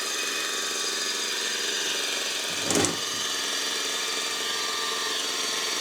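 Bench grinder running free with a steady hum, and one short knock about halfway through.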